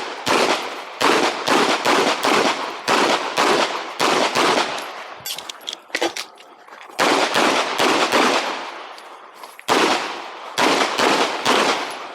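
Rapid 9mm pistol fire from a KMR Spectra shooting Geco 124-grain ammunition. The shots come mostly in quick pairs with short pauses between them, typical of double taps on each target while moving through a practical-shooting stage. There is a longer break about five and a half seconds in.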